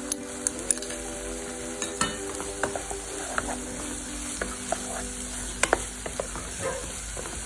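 Onion, capsicum and sauces sizzling in a frying pan as a spatula stirs them, with repeated clicks and scrapes against the pan.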